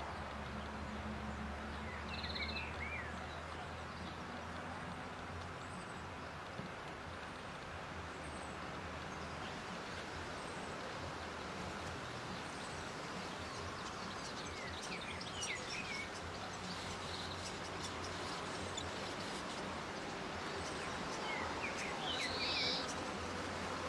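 Short runs of high, thin chirps from srikatan birds, three times: about two seconds in, around the middle, and near the end. Between them there is a steady outdoor hiss with a low hum.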